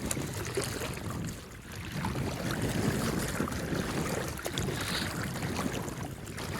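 Outdoor river ambience: moving water with wind buffeting the microphone, a steady rushing noise without a clear pitch.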